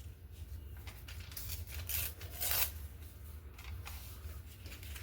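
Paper being handled and torn: a dictionary page rustling, with a short ripping tear about two and a half seconds in.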